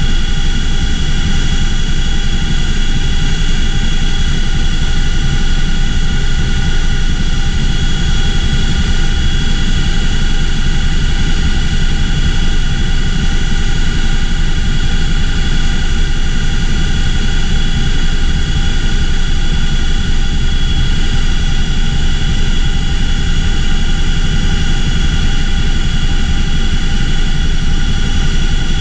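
Cockpit noise of a CH-47F Chinook tandem-rotor helicopter in flight: the steady, loud drone of its twin T55 turboshaft engines and rotors, with a constant high-pitched whine from the transmissions layered over a low rumble.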